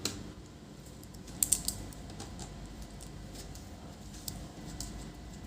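Small sharp clicks and taps of a screwdriver working on the plastic display bezel of a laptop as its screws are taken out: a quick cluster of clicks about a second and a half in, then scattered single ticks.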